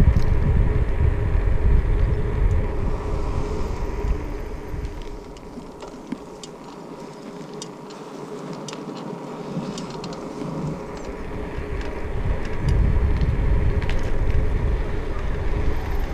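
Wind buffeting the microphone of a GoPro Hero 5 Session on a cyclist's backpack strap, a loud low rumble that eases off for a few seconds in the middle and then comes back. Scattered light clicks are heard while it is quieter.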